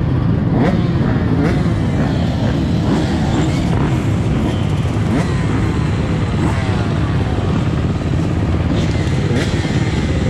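Motocross dirt bike engine revving up and down over and over as it is ridden hard, pitch climbing and dropping every second or so, over a heavy low rumble with a few sharp knocks.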